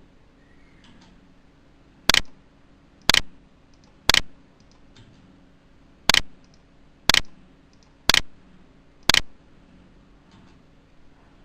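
Seven loud, sharp clicks about one a second, with one beat skipped midway, and a few much fainter ticks between them.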